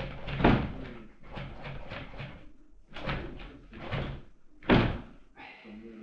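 Electric scooter's rear swingarm suspension being bounced under a rider's weight: repeated knocks, the loudest near the end, with a slight squeak that the owner takes as a little of the rear-pendulum creak still left after the repair.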